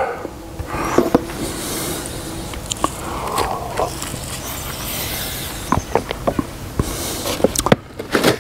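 Irregular clinks and knocks of cooking utensils and dishes during omelet preparation, over a steady hiss.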